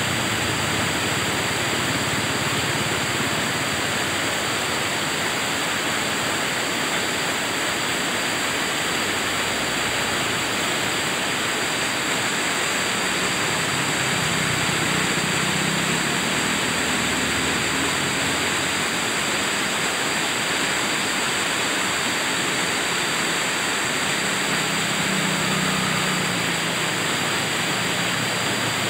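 Shallow rocky river rushing through white-water rapids over boulders: a steady, unbroken rush of water.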